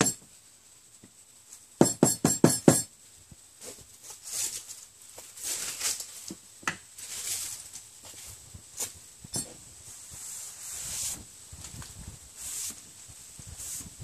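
A cloth wiping a wet tabletop in uneven rubbing strokes. About two seconds in, a quick run of about six sharp knocks, the loudest sound, with a single knock right at the start.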